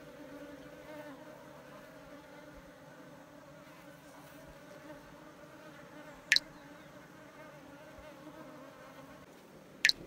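Asian honey bees (Apis cerana) buzzing in a steady low hum around exposed, freshly cut comb. Two short sharp clicks cut through, one past the middle and one at the very end.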